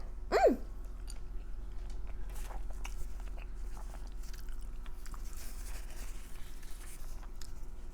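Close-miked chewing and soft wet mouth sounds of a person eating creamy uni pasta. About half a second in there is a brief hummed "mm".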